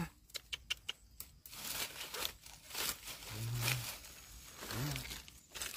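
Dry leaves and twigs crackling and rustling as a hand pushes through leaf litter, sharp crackles in the first second and a half, then softer rustling. A short low voice sound comes twice, about midway and near the end.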